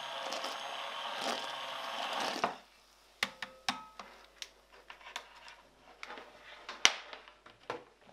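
Immersion blender whirring as it purées a frothy liquid in a cast-iron pot, cutting off abruptly about two and a half seconds in. Several sharp knocks and clicks follow as the blender is lifted out, the loudest a single knock near the end.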